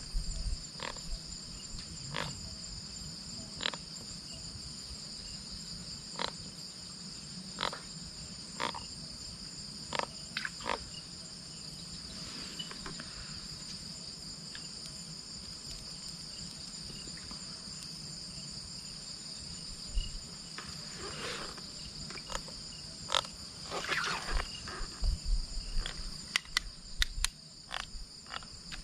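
Steady high-pitched chorus of night insects, crickets among them. Short sharp clicks come every second or two in the first part, then grow denser and louder with rustling handling noise near the end.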